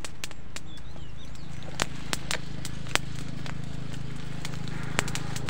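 A bundle of dry grass being lit and crackling as it catches, with scattered sharp snaps, several more near the end, over a steady low hum.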